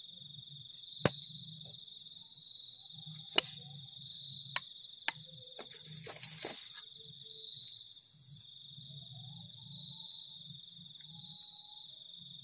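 Steady chorus of night insects chirring high and shrill, with a regular pulsing in it. A few sharp clicks about a second in and between three and five seconds in, then a brief rustling hiss around six seconds.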